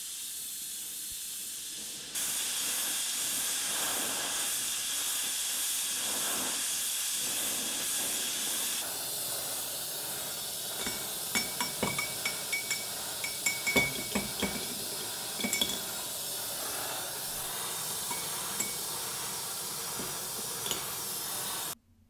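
Steady hiss of a gas torch flame, while hot steel screws are dipped into a glass jar of oil to blacken them. Near the middle, a run of sharp clinks of the metal against the glass jar, with a light ringing tone; the hiss cuts off suddenly near the end.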